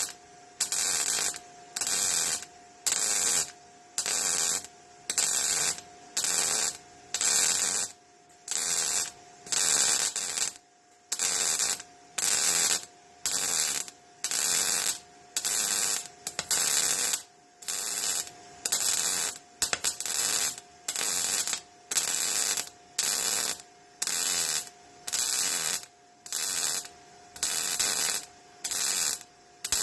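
MIG welder arc crackling in short, evenly spaced bursts of about half a second, roughly one a second: stitch-welding in a run of quick tacks. A steady hum runs underneath.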